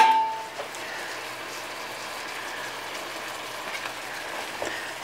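Beer and water simmering in an uncovered wok of potatoes: a steady bubbling hiss. A brief metallic ring fades right at the start.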